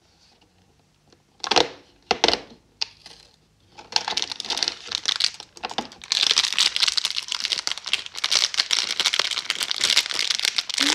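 A cardboard advent calendar door is pushed and torn open, giving two short tearing sounds about a second and a half in. Then a small plastic bag of sweets crinkles steadily as it is pulled out and handled, loudest over the second half.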